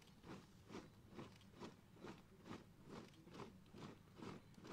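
Booted feet of a formation of pallbearers marching in step on concrete: a steady, even beat of footfalls a little over two a second.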